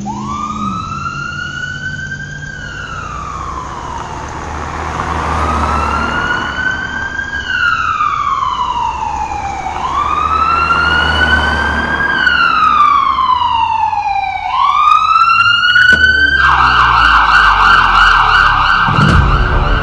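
Ambulance siren wailing, rising and falling slowly about every five seconds, then switching to a fast warble about sixteen seconds in. A low rumble runs underneath, and a deep falling boom comes near the end.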